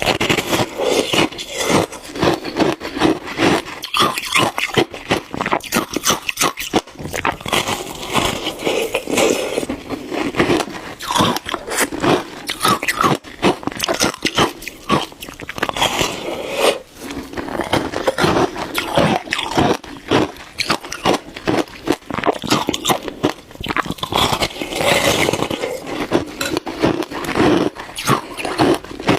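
Shaved ice being bitten and chewed close to the microphone: a dense, continuous run of crunching and crackling.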